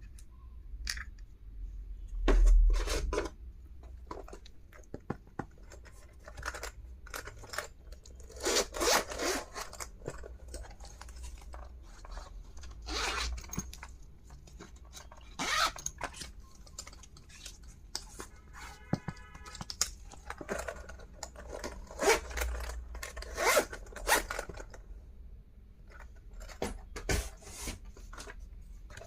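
Hands unpacking stationery: packaging tearing, scraping and rustling in irregular short strokes, with a brief buzzing rasp about two-thirds through.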